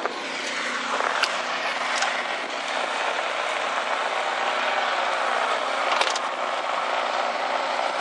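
Snowblower running steadily: a low engine drone under a broad, even rushing noise that builds over the first second and then holds.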